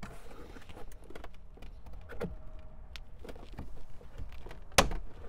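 Plastic trim cover on a Ford F-150 rear door being pried off by hand: small clicks and rubbing of plastic, a firmer click about two seconds in, then a loud sharp snap near the end as its retaining clips pop free.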